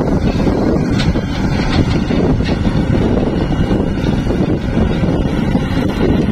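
Diesel engines of a Caterpillar 320-series hydraulic excavator digging and a loaded dump truck pulling away, a steady low rumble mixed with wind buffeting the microphone.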